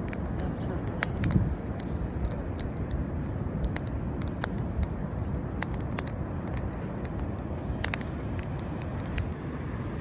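Steady rush of wind and surf on an open beach, with scattered sharp clicks throughout.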